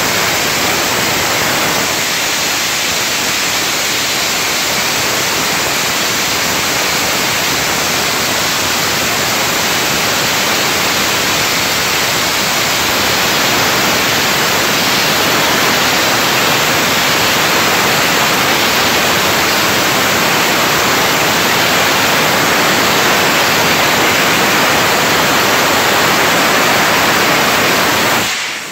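Sandblasting nozzle firing walnut-shell media with compressed air against a painted concrete wall: a loud, steady hiss. It dips briefly near the end.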